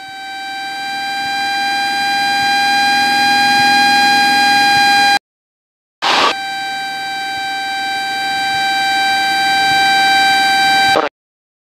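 Cessna 172 stall warning horn sounding a steady high tone that grows louder over about five seconds, cuts out briefly, then sounds again for about five more seconds. It signals that the wing is close to the stall, as at the slow top of a chandelle climbing turn.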